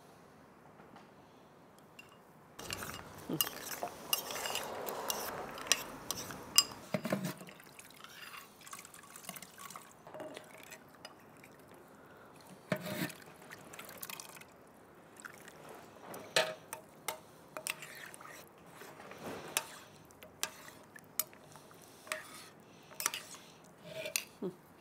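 Kitchen sounds: about three seconds in, liquid pours or splashes into a container for roughly four seconds, followed by scattered clinks and knocks of utensils against dishes.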